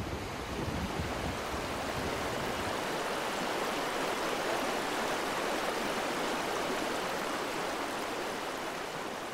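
Steady rushing water of a stream.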